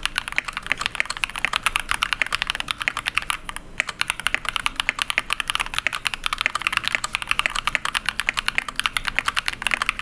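Fast, continuous typing on a Royal Kludge RK61 mechanical keyboard fitted with KTT Kang White V3 linear switches: a dense, even clatter of many keystrokes a second.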